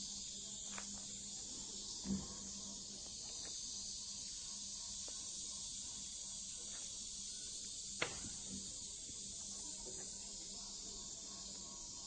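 Steady high-pitched chorus of insects, with a dull knock about two seconds in and a sharp click about eight seconds in.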